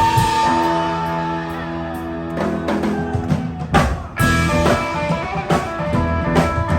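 Live rock band playing an instrumental intro jam with electric guitar, bass and drum kit. A held chord rings for the first couple of seconds, then the drums come in with sharp hits and the band plays on.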